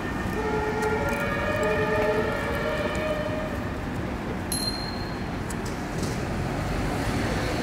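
Two-tone emergency-vehicle siren of the German kind, switching back and forth between a lower and a higher tone and fading out after about three seconds, over steady street traffic noise.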